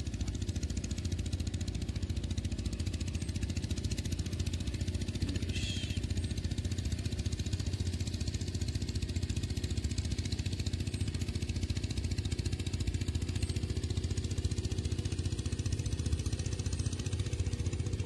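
A small engine running steadily at an even speed, a low drone with a fine rapid pulse. One short high chirp sounds about six seconds in.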